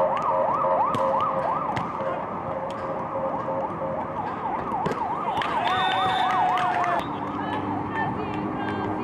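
A siren yelps, its pitch rising and falling about four times a second, and cuts off abruptly about seven seconds in. Through it come a few sharp slaps of a volleyball being served, passed and hit.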